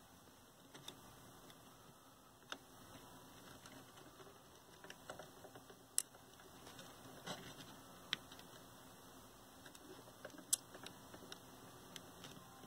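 Faint, scattered small clicks and taps as a soldering iron and desoldering braid work against a capacitor's leads on a circuit board, over a low hiss.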